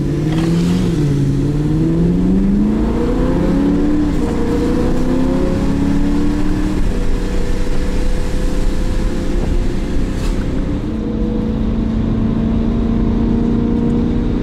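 BMW E92 M3's S65 V8 heard from inside the cabin, accelerating through the gears: its pitch climbs and steps down at shifts about one, four and seven seconds in. After that it runs steadily at cruising speed, easing down a step near eleven seconds.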